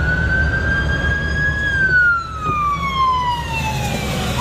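Emergency vehicle siren wailing: a high tone held steady, then falling slowly for a couple of seconds, and starting to rise again near the end. A steady low rumble runs underneath.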